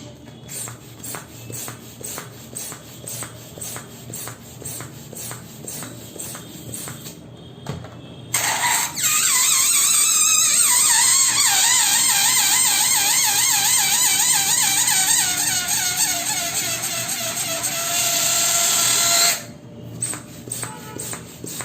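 A balloon letting its air out through its stretched neck: a loud, wavering squeal that starts about eight seconds in, slides slowly down in pitch for about eleven seconds and then cuts off. Before and after it, a quieter steady ticking runs at about two beats a second.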